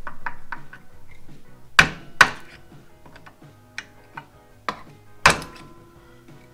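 Hammer blows on a small screwdriver used as a punch, driving the old pad's rivets out of a Victory motorcycle's steel kickstand: about half a dozen sharp metal strikes at uneven intervals, the hardest in two pairs about two and five seconds in. Background music plays under it.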